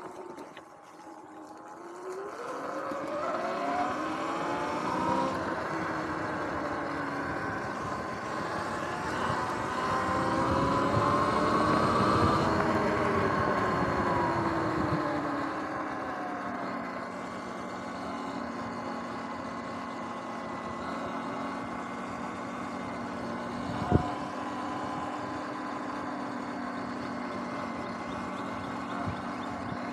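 Sur-Ron electric dirt bike's motor whining as it speeds up, the pitch climbing for about ten seconds, then falling and settling into a steady whine at cruising speed. A single sharp knock comes about two-thirds of the way through.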